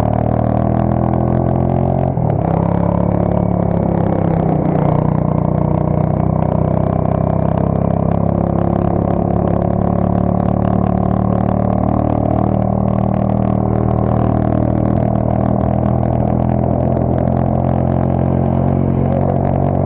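A Viper Active's small engine running at steady revs, a constant drone with no clear change in speed.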